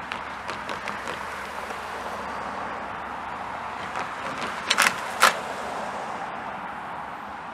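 A pickup truck passes close by with two sharp clunks about half a second apart over a steady outdoor rush.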